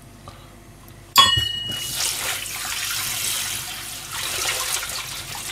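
About a second in, a sharp metallic clank with a short ring, like a stainless-steel bowl knocking against the steel sink. Then a kitchen tap runs steadily into the stainless-steel sink while hands rinse under the stream.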